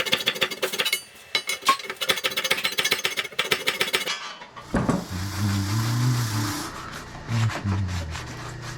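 A tool hammering rapidly and rattling for about four seconds, then stopping. After a short pause comes a hiss and a low hum that shifts up and down in pitch.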